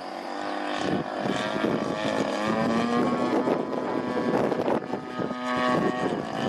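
Propeller engine of a CAP 232 aerobatic plane in flight, its note rising and falling in pitch as it manoeuvres overhead.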